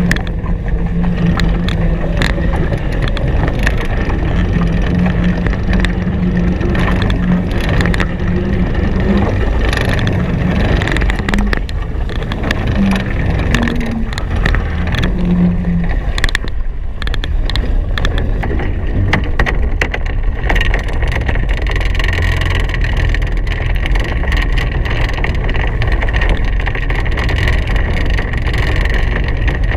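Wind buffeting the microphone and water rushing past the hulls of a Hobie Cat 16 catamaran sailing fast: a loud, steady noise, with a low hum that comes and goes through the first half and stops about sixteen seconds in.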